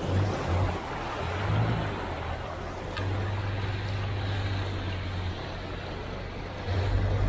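Cars wading through deep floodwater: water churning and splashing around the wheels and bodywork, with a steady low engine hum underneath.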